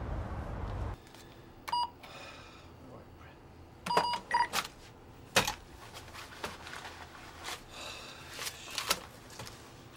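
An electronic cash register being worked: a few short key-press beeps, then sharp clicks and rattles from the open cash drawer as bills are handled. Low traffic rumble cuts off about a second in.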